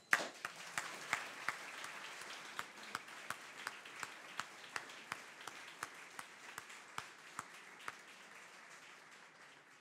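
Audience applauding, with one person's sharp claps close to the microphone standing out at about three a second. The applause starts suddenly and slowly dies away toward the end.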